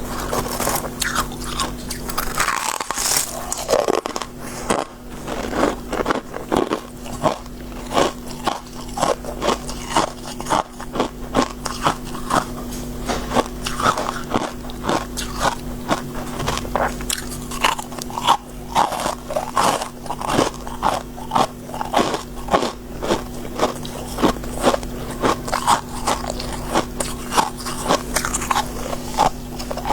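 Close-miked biting and chewing of soft, crispy shaved freezer frost: a continuous run of crisp crunches, about two a second, over a faint steady hum.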